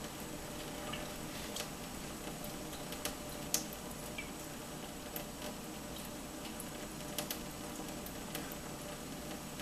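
A thin stream of tap water trickling into a stainless steel sink, with scattered light clicks and splashes as a cat paws at the falling water; the loudest click comes about three and a half seconds in.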